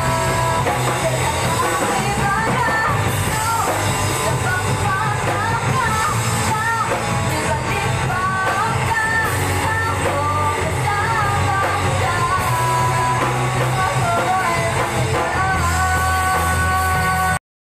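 Live rock band playing through the stage PA: a woman singing lead over electric guitars, bass guitar and drum kit. The sound cuts off suddenly just before the end.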